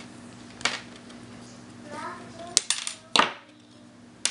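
Needle-nose pliers and small plastic crimp-connector sleeves handled on a desk: a series of light clicks and clatters, the loudest about three seconds in.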